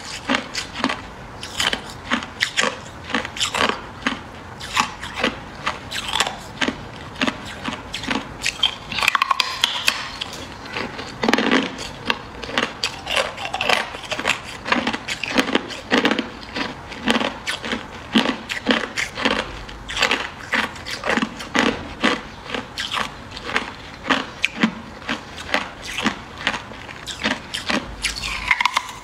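Hard ice, frozen in the shape of a ridged water bottle, being bitten and chewed: an uneven, continuous run of sharp crunches, several a second.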